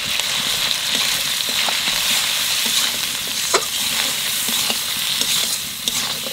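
Tomatoes, green chillies and spices sizzling in hot oil in an aluminium kadai as they are stirred with a metal spatula: a steady sizzle with a few sharp scrapes and clicks of the spatula against the pan. This is the stage where the spice mix is fried in the oil before the vegetables are added.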